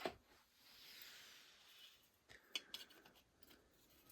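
Near silence, with a faint short hiss about a second in and a few light clicks past the middle.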